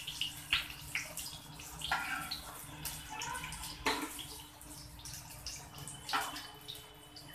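A slotted steel spoon scraping and tapping against a non-stick frying pan, about half a dozen light scrapes and clinks spread out, as shallow-fried paneer cubes are scooped out. Under it, a faint hiss of hot oil sizzling.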